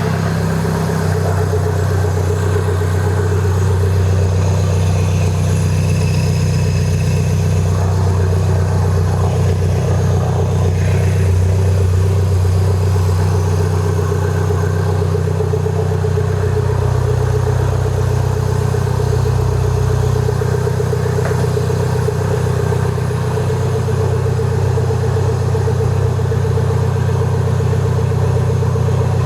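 Swapped-in Mini Cooper S turbocharged four-cylinder engine idling steadily and loudly, running with no downpipe fitted so the exhaust comes straight off the turbo.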